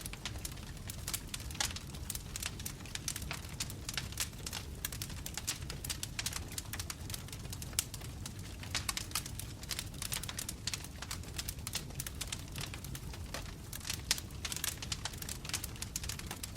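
Wood fire crackling: burning logs popping and snapping in quick, irregular clicks over a low, steady rumble of flame.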